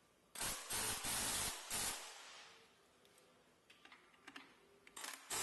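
Compressed air hissing in short bursts: four bursts in the first two seconds, then a longer one starting near the end.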